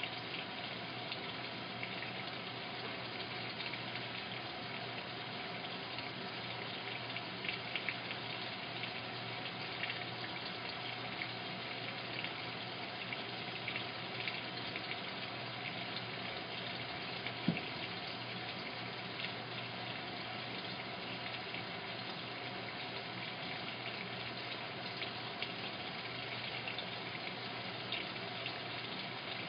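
Washing machine filling with water: a steady rush of water running into the drum through the inlet valve, with a low steady hum under it. One brief click about two-thirds of the way through.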